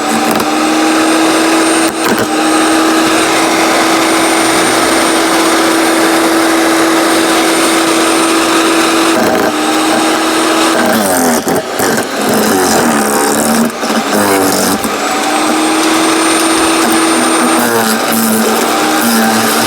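15-amp electric wood chipper shredder's motor running with a steady whine and the chopping of branches. About halfway through the pitch drops and wavers for several seconds as a branch loads the blades, then climbs back, and it sags again near the end.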